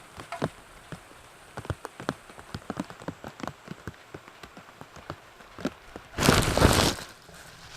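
Raindrops of a sudden shower hitting close to the microphone: irregular sharp taps over a faint hiss. About six seconds in comes a loud rustling burst lasting under a second.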